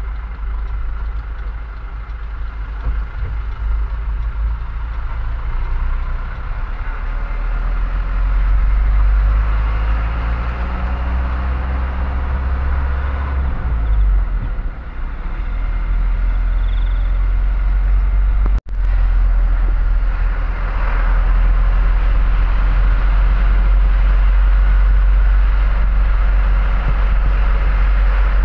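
Diesel engine of a Mitsubishi Fuso truck running while driving, heard from inside the cab, with a steady low rumble and road noise. The engine note climbs in pitch for a few seconds and then falls away about halfway through, as when pulling through a gear and shifting; the sound cuts out for an instant about two-thirds of the way in.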